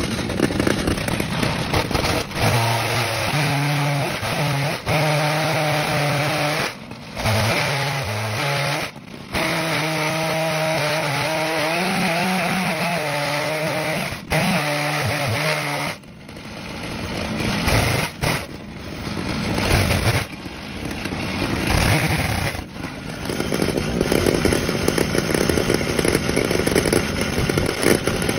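Stihl chainsaw mounted in a chainsaw mill, running under load as it rips lengthwise through a cherry log, its engine note wavering with the cut. The sound breaks off briefly several times.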